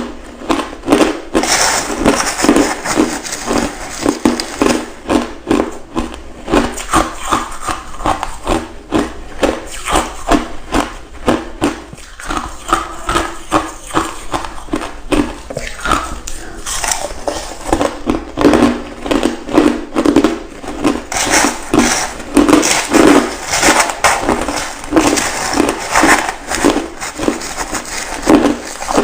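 Ice being chewed close to the microphone, a steady run of loud crisp crunches at about two a second.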